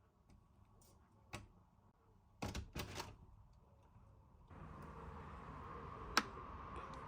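A few household knocks and clicks, the loudest a quick cluster about two and a half seconds in, then a steady whooshing noise starts suddenly about four and a half seconds in, with one sharp click during it.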